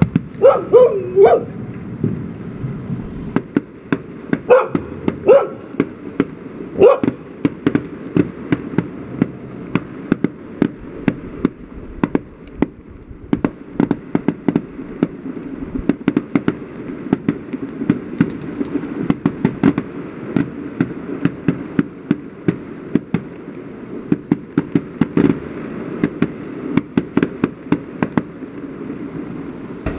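Fireworks going off: a dense, continuous run of sharp bangs and crackling reports, several a second. A dog barks a few times in the first seven seconds.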